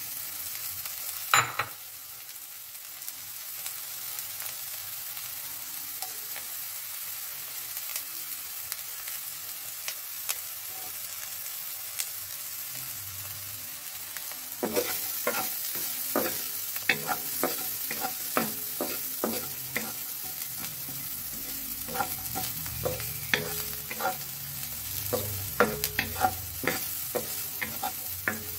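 Chopped onion and garlic sizzling in a frying pan, a steady hiss. About a second in there is one sharp knock as a bowl hits the pan; from about halfway a wooden spatula stirs, with many irregular taps and scrapes against the pan.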